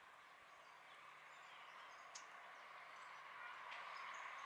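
Faint, steady jet engine noise of a twin-engine airliner on final approach, slowly growing louder, with small birds chirping briefly.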